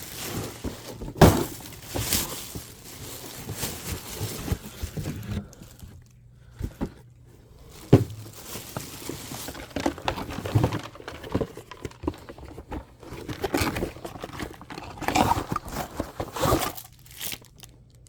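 Rustling and crinkling of packaging with scattered knocks and thuds as items are handled and set down, the sharpest knocks about a second in and again near the middle.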